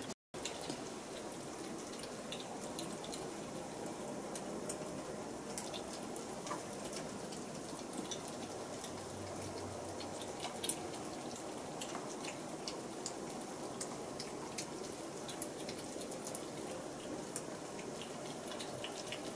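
Several Japanese Bobtail kittens eating wet cat food together from a plate: a continuous patter of small wet smacking, lapping and chewing clicks.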